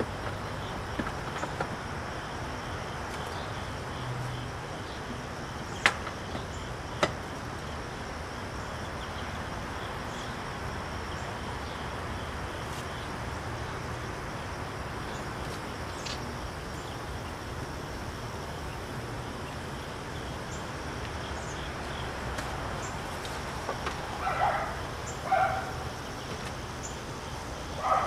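Two sharp wooden knocks about a second apart as parts of a wooden beehive are handled and set back in place, over a steady outdoor background. A few short calls come near the end.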